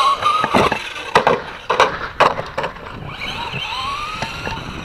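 Electric motor of a Traxxas Slash 2WD RC truck whining as it speeds up, with several sharp knocks in the first couple of seconds as the truck bounces over the dirt, then winding up again in a rising whine near the end.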